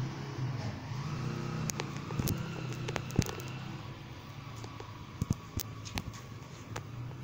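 A steady low mechanical hum, with about a dozen sharp clicks and taps scattered through it.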